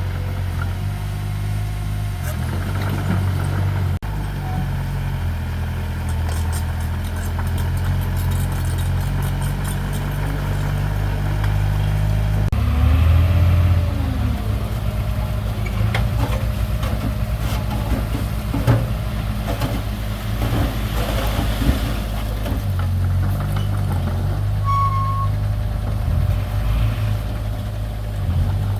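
Diesel engine of heavy earthmoving machinery running steadily, with a brief rise and fall in pitch about halfway through and scattered knocks in the second half.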